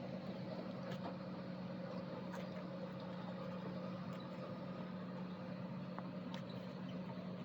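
Farm machinery running at a steady pitch: a constant drone with a few faint clicks.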